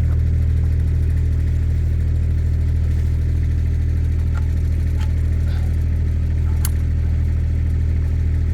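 Kubota mini excavator's diesel engine idling steadily with a deep, even hum. A few light clicks come through near the middle.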